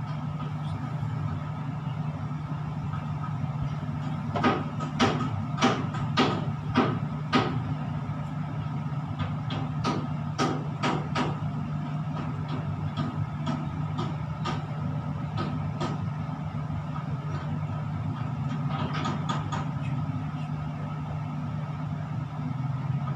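Steady low machine hum inside a tower crane cab, with sharp clicks or taps coming in runs: about six, roughly half a second apart, a few seconds in, a few more around the middle, and another short cluster near the end.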